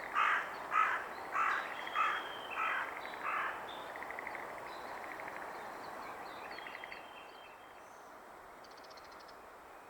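A bird giving six loud, harsh calls in a row, a little over half a second apart, followed by fainter high chirps and short trills from smaller birds.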